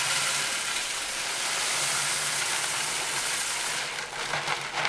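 Expanded clay pebbles poured from a bag into a large ceramic pot: a steady rushing rattle of pebbles pouring onto pebbles, thinning to separate clicks near the end as the pour tails off.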